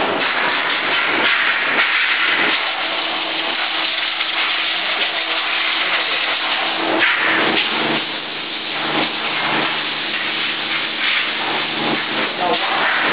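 Machine-shop noise at a CNC vertical machining center: a steady hiss, with a low machine hum of several steady tones that comes in partway through and grows fuller about seven seconds in.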